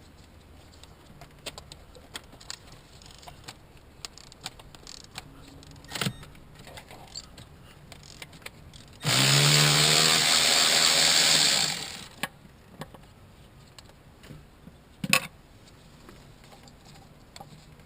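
A small power tool whirs steadily for about three seconds midway through, among scattered clinks and knocks of tools and parts being handled.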